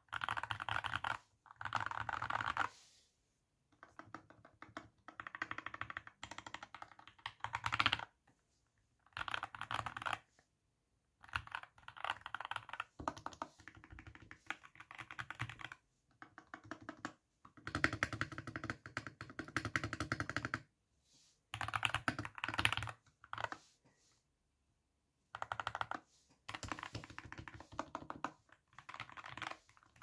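Typing on an Epomaker SK64 mechanical keyboard with lubed Gateron Brown tactile switches and PBT keycaps, modded with internal sound-dampening foam, three layers of tape and Holee-modded stabilizers. Fast runs of keystrokes come in bursts of a second or a few seconds, broken by short pauses.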